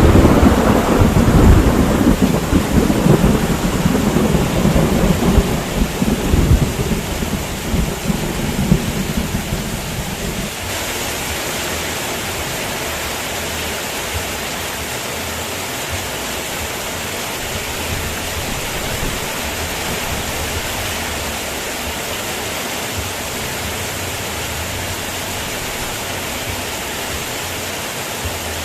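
Heavy rain falling steadily, with a crack of thunder just at the start that rolls on as a deep rumble and fades out about ten seconds in, leaving the even hiss of the rain.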